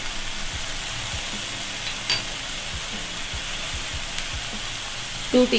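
Julienned vegetables sizzling in hot oil in a frying pan on high heat: a steady hiss, with a few faint knocks.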